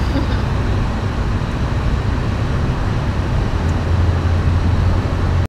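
Steady road noise inside a car driving on a highway: a low rumble of tyres and engine, with the low hum getting stronger near the end.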